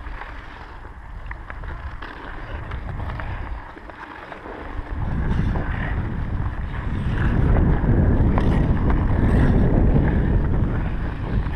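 Low rumbling wind and motion noise on a head-mounted GoPro's microphone as the wearer skates over pond ice, getting much louder about five seconds in, with a few light clicks from sticks and skates early on.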